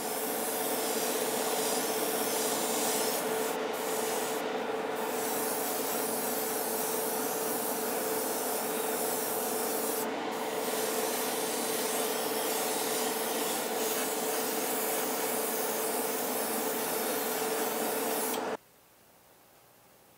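Airbrush spraying paint onto a model car body in a hobby spray booth: a steady hiss of air over a constant hum, the hiss thinning briefly a few times. It cuts off suddenly near the end.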